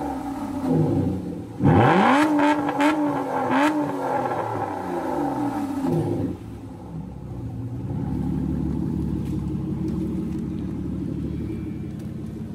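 Aston Martin Vanquish V12 revved while stationary: a sharp rev about two seconds in and two more quick blips right after, then the revs fall away. About halfway through it settles into a steady idle.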